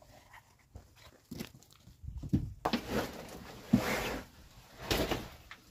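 Loose earth and small stones being handled in a cloth: a few light scrapes and knocks, then rustling, pouring bursts of soil with a sharp knock about two-thirds of the way in and a last burst near the end.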